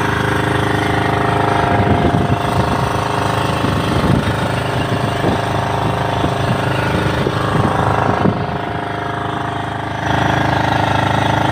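Fishing boat's engine running steadily, with uneven knocks and clatter over it from about two seconds in as a net is handled at the boat's side.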